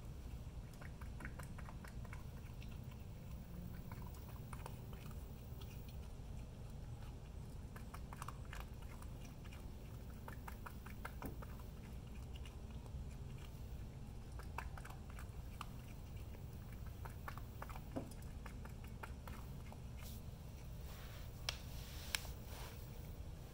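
Raccoon crunching dry cat-food kibble from a bowl: a run of small, irregular crunches and clicks, with a few sharper clicks near the end, over a steady low hum.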